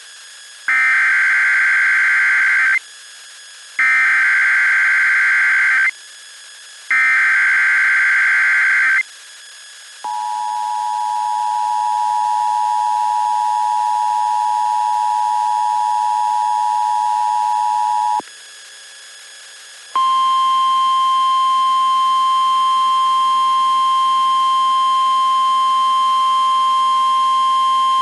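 Emergency Alert System SAME header, sent three times as harsh, raspy digital data bursts of about two seconds each, for a severe thunderstorm watch. Next comes a steady two-pitch attention tone lasting about eight seconds, and after a short gap a single steady, piercing NOAA Weather Radio warning-alarm tone lasting about nine seconds.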